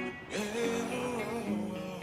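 Background music, a guitar-led track.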